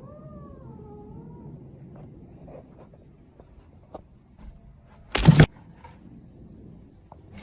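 A cat's drawn-out, wavering meow that rises and falls and ends about a second and a half in. About five seconds in there is a sudden, loud, short burst of noise.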